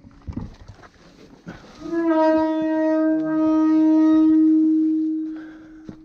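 A few light rustles and knocks, then, about two seconds in, a single long horn-like blast at one steady pitch. It holds for about three seconds and then fades away.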